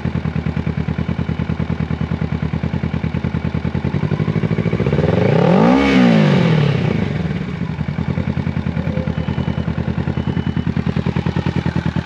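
2017 Kawasaki Z650's 649 cc parallel-twin engine idling through a Two Brothers aftermarket exhaust, blipped once about halfway through to a single rev that rises and falls back to a steady idle.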